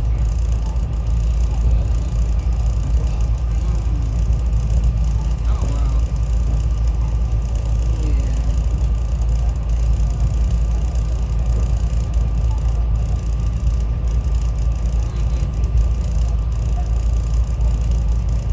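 SEPTA Regional Rail electric commuter train running between stations, heard from inside the car: a steady low rumble with a faint steady whine above it.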